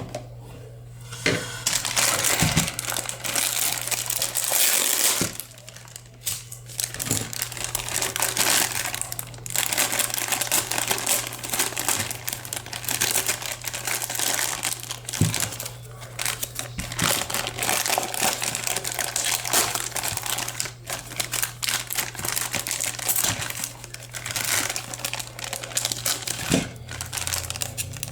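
Plastic packaging crinkling and rustling as it is handled and pulled open, an irregular run of crackles with small clicks and a couple of short pauses, over a steady low electrical hum.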